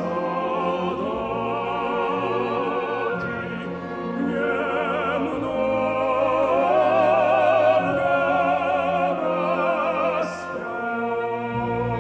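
Operatic male singing with a wide vibrato over a symphony orchestra playing sustained chords.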